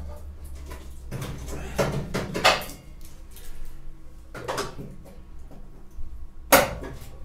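A few clunks and knocks from the steel door and A panel of a Mk1 Mini being handled while the door is test-fitted. The loudest knock comes near the end, with a steady low hum underneath.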